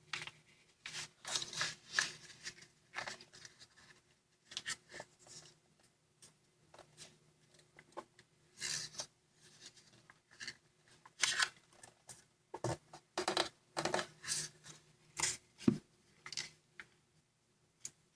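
A square of origami paper being handled and folded by hand: irregular rustling and crackling, with crisp sharp sounds as folds are pressed flat and creased with the fingers, busiest in two stretches near the start and in the second half.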